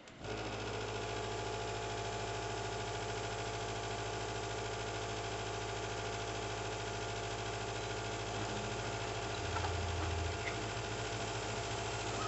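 Hobby CNC laser cutter switching on and running: a steady electric hum and whine from its motors and fan that starts abruptly, with a brief louder low hum about ten seconds in.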